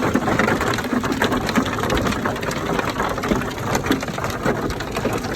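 Heavy rain pattering, a dense steady spatter of drops.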